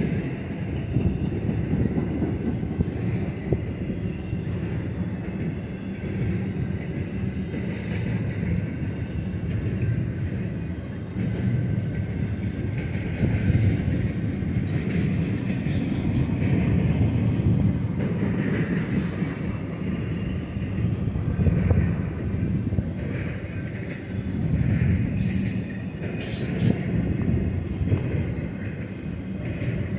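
Double-stack intermodal cars of a Union Pacific freight train rolling past: a steady rumble of steel wheels on the rails, with faint high wheel squeals over it.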